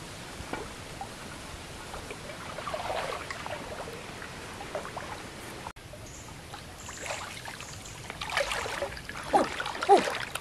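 River water trickling and lapping, then splashing from a person wading through waist-deep water, growing louder over the last couple of seconds.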